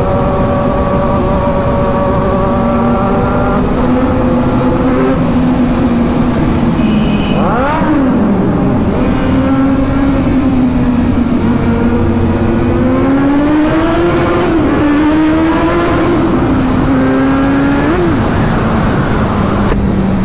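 Kawasaki Z800 and Z900 inline-four motorcycle engines running hard and echoing inside a road tunnel, the engine note holding steady and then rising and falling as the throttle is worked. There is a quick sweep up and down in pitch about eight seconds in.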